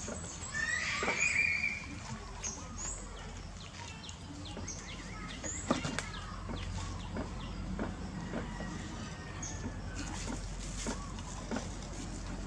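Short high animal calls, the loudest about a second in, with scattered small clicks and knocks over a steady low hum.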